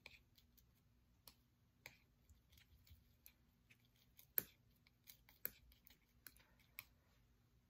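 Faint clicks and short scrapes of a palette knife working oil paint on a palette, scattered irregularly, the sharpest about four and a half seconds in and again about a second later.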